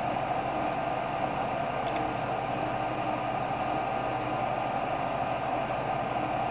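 Steady background hiss with a low, constant hum, the room and microphone noise under a pause in narration, with one faint click about two seconds in.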